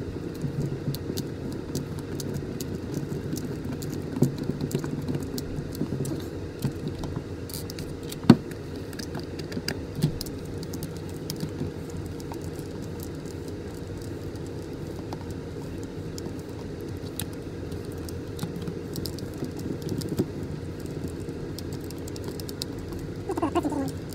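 Hand screwdriver driving the screws of a patient lift's plastic control-box housing, with small clicks and rattles of the box being handled and one sharp knock about eight seconds in. A steady low hum runs underneath.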